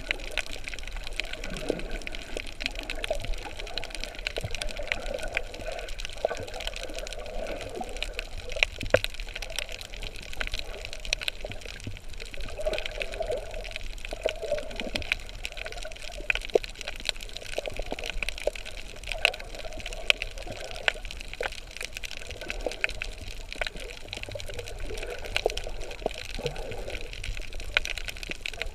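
Water heard while snorkelling: a steady swishing wash with swells that come and go, scattered with many short, sharp clicks and crackles.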